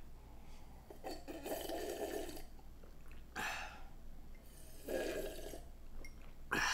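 Ramen noodles and broth being slurped in a few wet pulls: two long slurps and a short one between them.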